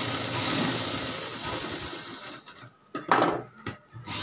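Sewing machine running, stitching a seam through cotton fabric; it slows and stops about two and a half seconds in, then gives a few short, louder bursts near the end.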